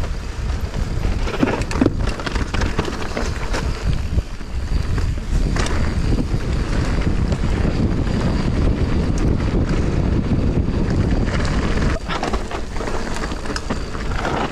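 Mountain bike descending a dirt singletrack at speed: wind buffeting the microphone over the rumble of the tyres, with the bike rattling and knocking now and then over roots and rocks.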